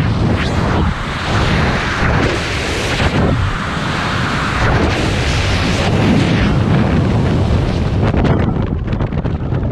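Loud freefall wind rushing and buffeting over the microphone of a skydiver's camera. About eight seconds in, the rush thins and turns into a rapid flutter as the parachute deploys and the fall slows.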